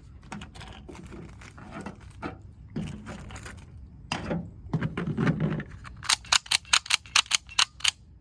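Sharp clicks from handling a cheap OTF switchblade knife, scattered at first, then a fast run of about a dozen clicks near the end.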